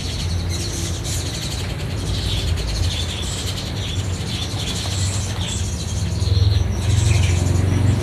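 Many caged songbirds chirping at once, short scattered calls overlapping, over a steady low hum that swells slightly in the second half.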